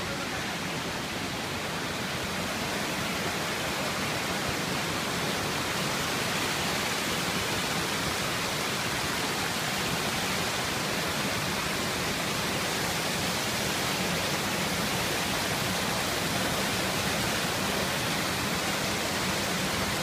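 Steady rush of a rocky mountain stream, water tumbling over and between boulders.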